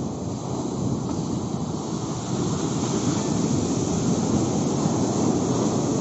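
Sea surf breaking and washing up the beach, a steady rushing that swells a little louder about two seconds in.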